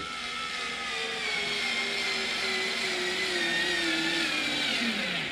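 A TackLife SDP60DCB 3.6-volt cordless screwdriver drives a Phillips wood screw into a block of wood with a steady motor whine. The pitch sags slowly as the screw sinks in, then winds down and stops near the end as the screwdriver reaches its torque limit.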